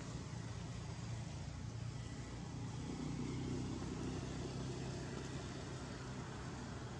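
Steady low background rumble with a faint hum, growing a little louder about three seconds in.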